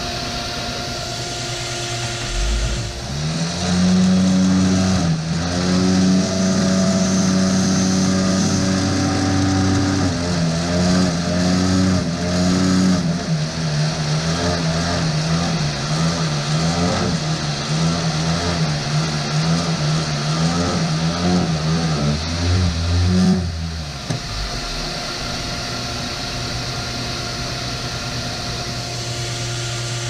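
A plate seeder's vibrator buzzes for about twenty seconds, starting a couple of seconds in. Its pitch is steady at first, then wavers up and down about once a second in the second half, while the seeds are shaken across the plate. Under it runs the steady hum of the seeder's vacuum motor.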